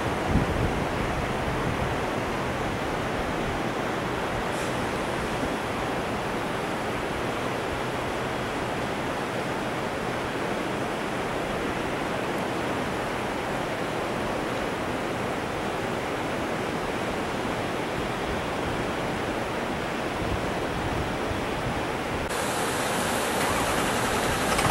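Floodwater rushing in a steady, even wash, turning a little hissier about two seconds before the end.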